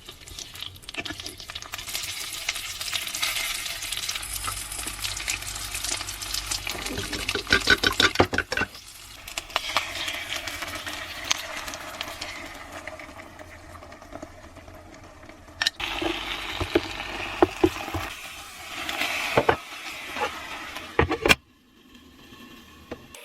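Pan-fried kimchi dumplings sizzling in hot oil in a frying pan, with sharp crackles and clatters of the pan or utensil. The sizzle cuts off suddenly near the end.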